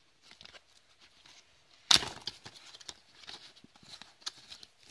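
Small cardboard speed-cube box being opened by hand. The flaps rustle and scrape, with one sharp snap about two seconds in, then scattered soft clicks and rustles of the cardboard.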